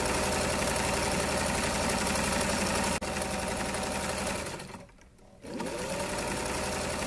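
Sewing machine stitching a seam through layered frock fabric at a steady speed. It stops for about half a second a little past the middle, then starts again, its pitch rising as it gets back up to speed.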